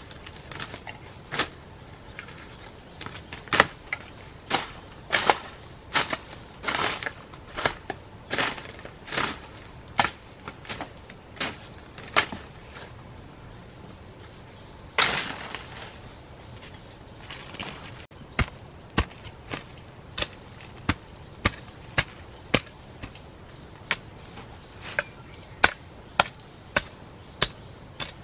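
Sharp chopping strokes of a blade into wood: irregular in the first half, then steady at about one a second, with one longer, rougher stroke about halfway through. A steady high insect drone runs underneath.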